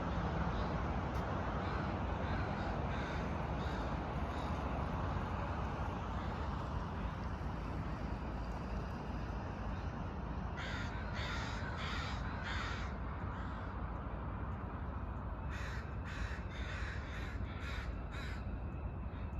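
Crows cawing in two runs of harsh repeated calls, about four caws around the middle and about six more a few seconds later, over a steady low rumble.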